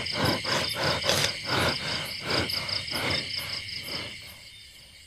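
Crickets chirping steadily in a night chorus, with faint irregular lower sounds beneath that die away about four seconds in.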